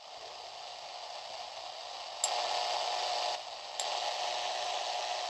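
Static hissing from a handheld radio receiver's speaker, tuned to 400 MHz AM. About two seconds in a sharp click comes and the noise jumps louder with a steady hum-like tone in it. It drops back briefly, then jumps up again with another click near four seconds. This is RF noise being picked up on 400 MHz as a metal rod touches a steel file.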